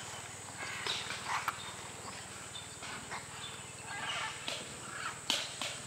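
White-lipped peccaries calling while they swim across a stream: scattered short, rough grunting calls and a few sharp clicks.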